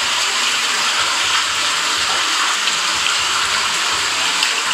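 Steady rush of flowing floodwater, heard thinly through a phone's speaker.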